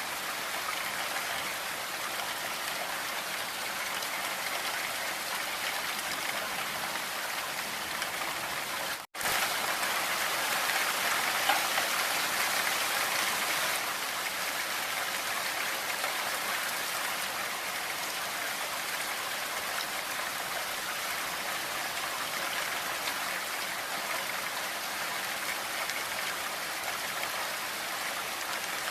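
Blizzard wind blowing through forest trees, a steady rushing hiss. It cuts out for an instant about nine seconds in, then comes back a little louder for a few seconds.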